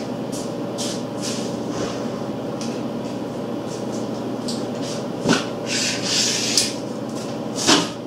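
A steady machine hum runs throughout. Over it come a few clatters and knocks and a brief rustling scrape a little past halfway as someone rummages for a tape measure, with another knock near the end.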